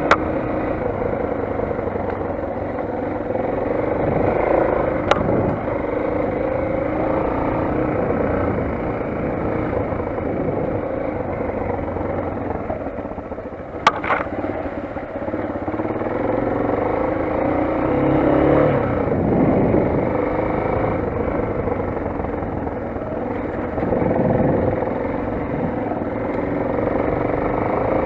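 Motoland XR 250 single-cylinder enduro motorcycle engine running under way, its pitch rising and falling as the throttle and gears change. A sharp knock comes about five seconds in and another about fourteen seconds in.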